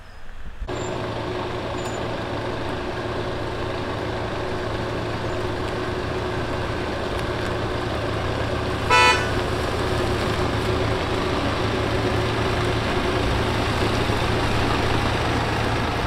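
Hyundai forest-fire and pest-control spray truck running steadily with a low hum. A short horn toot comes about nine seconds in.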